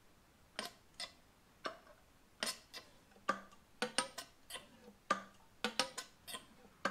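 Sharp metallic clicks and clacks from a Harley-Davidson Sportster fork tube being pumped back and forth in its slider to work out the last of the old fork oil. The clicks come irregularly, about two a second, and bunch closer together in the second half.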